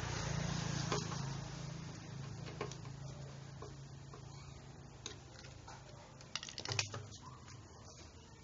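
Small gasoline generator engine of a Firman FPG1500L humming low and fading away over several seconds, with sharp metallic clicks and taps of a hand tool on the generator, several in quick succession a little before the end.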